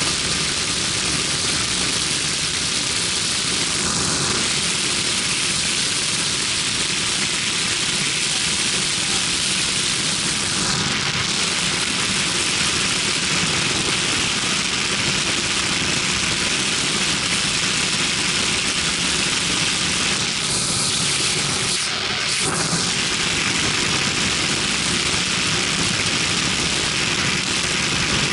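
Hurricane ultralight aircraft in flight: its engine and propeller running steadily at cruise power, mixed with a loud, steady rush of wind past the open cockpit.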